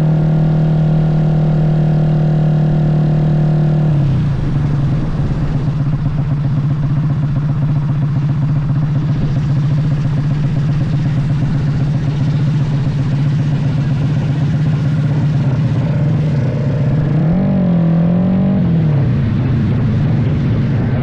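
Motorcycle engine held at steady high revs, its note turning rougher about four seconds in, then revved up and down twice near the end.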